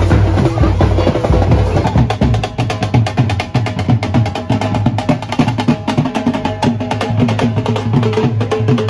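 Percussion-heavy music with fast, continuous drumming, several strikes a second.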